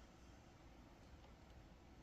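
Near silence in the pause between a sleeping dog's loud snores, with only a faint low hum of room noise.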